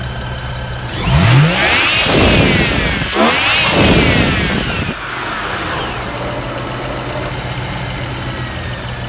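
2007 BMW 335i's 3.0-litre twin-turbo straight-six idling steadily, revved twice about a second apart, each rev rising and falling back, then settling to idle again.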